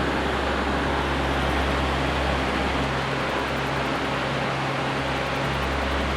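Steady, even rushing noise with a low hum underneath, which briefly drops out about three seconds in.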